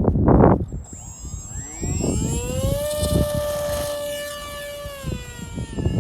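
AeroScout radio-control plane's electric motor whining as it is throttled up: the pitch rises over about two seconds, holds steady, then dips slightly near the end. Wind gusts buffet the microphone at the start.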